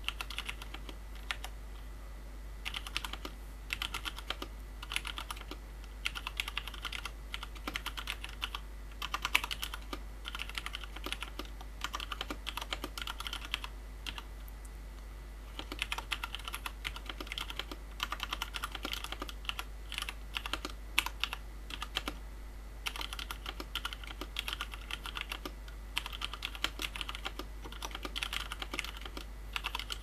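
Touch-typing at about 50 words per minute on a Cherry G80-3000S TKL keyboard with Cherry MX Brown tactile switches, PCB-mounted without a plate, and ABS keycaps. The keystrokes come in quick runs of clacks, broken by a couple of short pauses, the longest about 14 seconds in.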